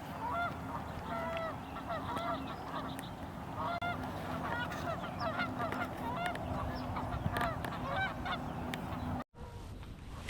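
A flock of geese honking, many short calls overlapping, over a steady low hum. The honking breaks off with a sudden dropout about nine seconds in, leaving a steady hiss.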